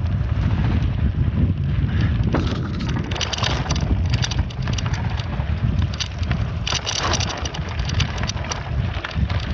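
Wind buffeting the microphone of a camera on a moving bicycle, a steady low rumble, while the bike rolls over a rough gravel dirt road. Clusters of rattling and crunching from the tyres and frame come a few seconds in and again near the end.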